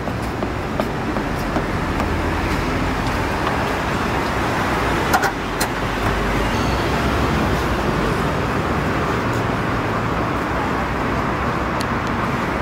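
Steady street traffic noise, with a few light clicks and one sharper click about five seconds in.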